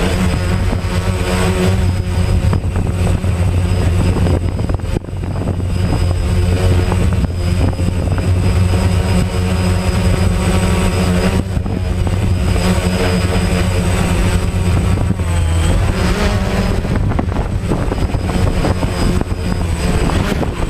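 DJI Phantom quadcopter's motors and propellers humming steadily with a thin high whine, mixed with wind noise. The sound dips briefly twice.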